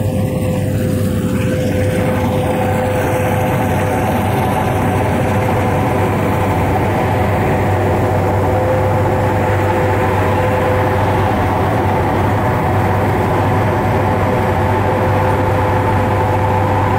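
Fieldking tracked combine harvester running close by during paddy harvesting. A steady engine drone carries a constant high whine, with no change in speed or load.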